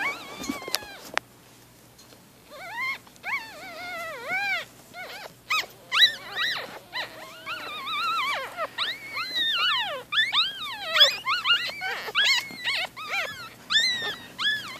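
Newborn Shih tzu-Bichon puppies, four days old, squeaking and crying in many short, high calls that each rise and fall in pitch, several overlapping at once. A few knocks sound in the first second.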